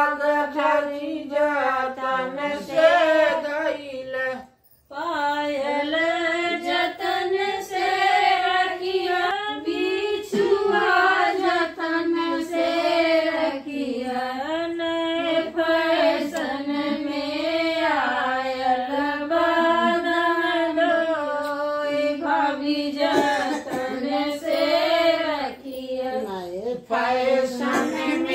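Women singing a traditional Hindi wedding song (shaadi ke geet) together. The singing drops out abruptly for a moment about four and a half seconds in, then carries on.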